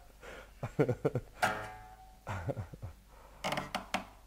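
Classical guitar strings plucked one at a time and left to ring, a handful of single notes with pauses between them, as the guitar is tuned before playing. The loudest note comes about one and a half seconds in.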